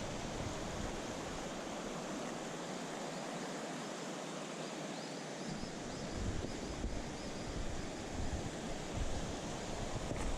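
Steady rush of a mountain stream's flowing water, with wind buffeting the microphone in low gusts that drop away for a few seconds in the first half.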